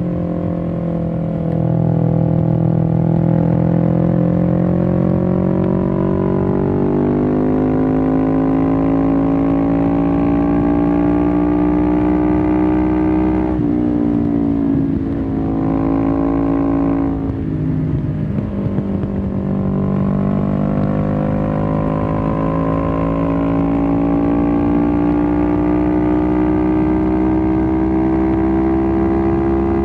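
Loud 1993 Suzuki GS500E air-cooled parallel-twin engine through a Takkoni slip-on exhaust with the dB-killer removed, pulling under load. Its note climbs slowly as the bike gathers speed, drops at a gear change about 13 seconds in, dips again around 18 seconds, then climbs slowly once more.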